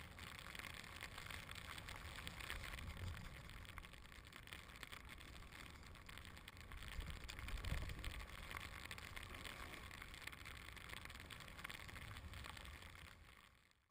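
Snowboard sliding and hissing steadily through fresh powder, with wind rumbling on the microphone that swells about eight seconds in; the sound fades out near the end.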